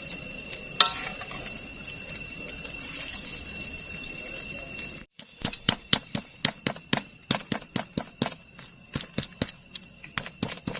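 Forest insects chirring steadily in several high bands. About halfway in the sound cuts out briefly, then a quick, irregular run of sharp knocks or taps begins, two to three a second, over the same insect chirr.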